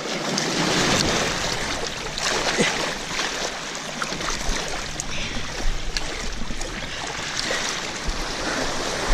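Sea water rushing and splashing around a kayak moving through waves, with scattered sharp splashes.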